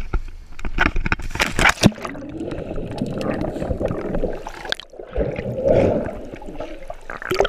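Sea water splashing over the camera as it is dipped under the surface, with a series of sharp splashes in the first two seconds, then muffled underwater bubbling and churning, with another splash near the end.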